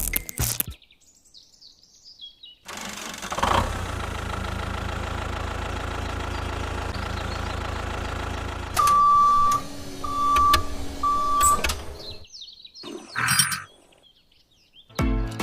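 A small engine running steadily for several seconds, then three short, even beeps about a second apart. Faint bird chirps sound in the quieter stretches before and after.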